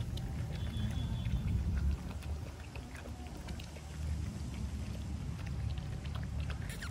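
Several puppies lapping milk from a plastic bowl, a run of quick wet clicks and slurps, over a steady low rumble.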